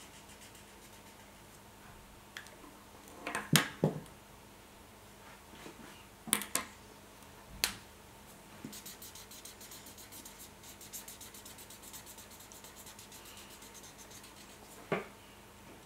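Felt-tip marker colouring on paper, its tip scratching in quick, even strokes through the second half, with a few sharp clicks and taps from the markers being handled and swapped.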